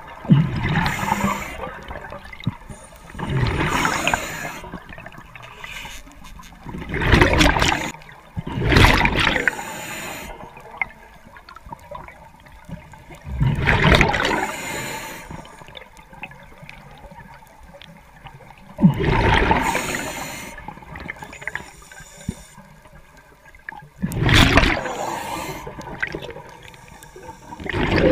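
Scuba diver breathing underwater through a regulator: a rush of exhaled bubbles roughly every five seconds, some breaths coming in close pairs.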